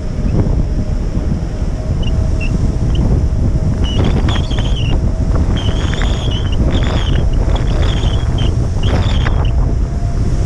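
Strong wind buffeting the microphone, a heavy steady rumble, with a faint steady hum beneath it. A string of short high squeaks comes from about four to nine seconds in.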